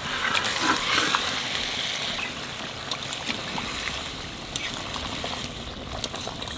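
Spiced curry gravy boiling hard in a metal kadai, bubbling and spitting, as pieces of fried eel are slid in from a clay bowl over the first couple of seconds. The bubbling eases a little after that, with a few light knocks from the ladle against the pan.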